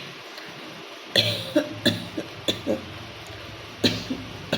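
A woman coughing: a rapid run of about six short coughs starting about a second in, then a few more coughs near the end.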